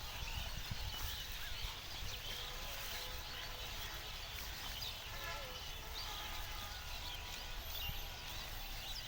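Outdoor farm ambience: scattered short high chirps and squeaks of animals over a steady low rumble.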